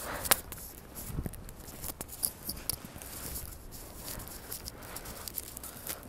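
Footsteps in fresh snow on outdoor concrete stairs and a bridge walkway: a series of irregular soft scuffs and crunches.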